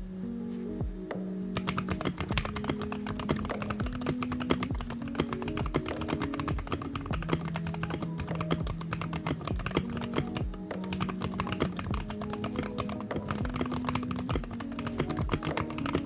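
Fast, continuous typing on a stacked-acrylic, gasket-mounted 65% mechanical keyboard with lubed Gateron Oil King linear switches, an FR4 plate and ASA-profile keycaps. The keystrokes start about a second and a half in.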